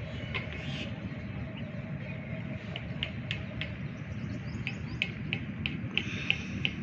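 Small birds chirping in quick runs of short, sharp notes, about three seconds in and again near the end, over a steady low outdoor rumble.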